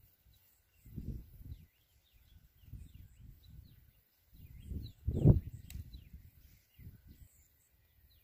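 Small birds chirping, with many short, high calls scattered throughout. Under them run irregular low rumbles that come and go, the loudest about five seconds in.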